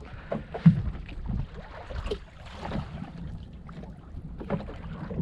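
Fishing boat's engine running with a steady low hum, with scattered knocks and bumps on board, the sharpest about a second in.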